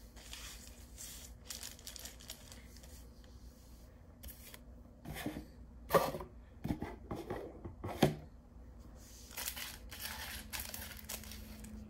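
Rustling and handling noises, with two sharp knocks about six and eight seconds in.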